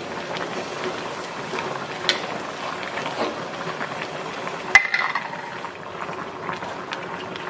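Water boiling in a stainless steel pot of cabbage shoots, with a utensil stirring and clicking against the pot. Just before halfway through comes a sharp metal clink against the pot, the loudest sound, ringing briefly.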